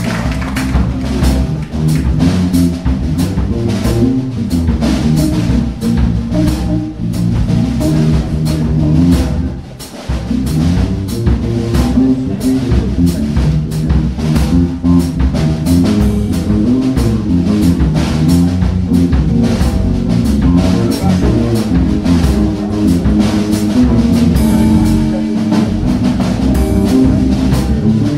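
Live band playing: a drum kit keeps a busy beat under a moving bass line and electric guitar, with a brief break about ten seconds in.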